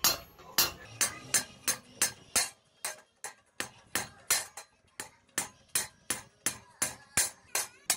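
Hand hammer peening the rivets that fasten a socket plate to a steel plough blade: quick, even metal-on-metal blows, about three a second.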